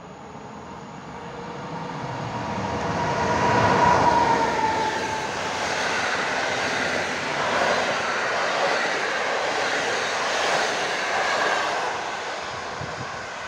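Polish EP09 electric locomotive hauling an intercity train of passenger coaches past a station platform. The rush of the approaching locomotive grows louder over the first few seconds, then the coaches go by in a steady rolling rush that eases near the end as the last coach passes.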